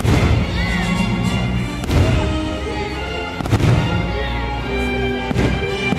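Show music playing throughout while fireworks shells burst with four sharp booms, one about every one and a half to two seconds.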